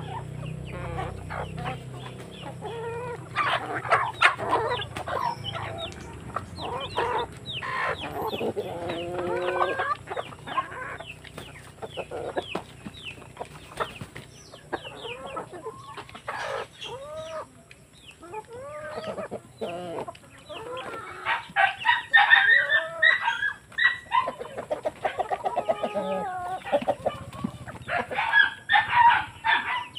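A flock of hens and roosters clucking and squawking as they feed on green bananas, with short calls all through and louder, busier bursts of squawking about two-thirds of the way in and again near the end.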